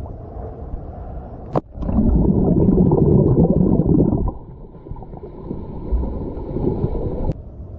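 Muffled underwater rushing and gurgling of water and bubbles as a swimmer dives in and glides underwater, heard through a submerged camera. A sharp click comes about a second and a half in, the loudest rushing follows for a couple of seconds, then it is quieter and cuts off abruptly near the end.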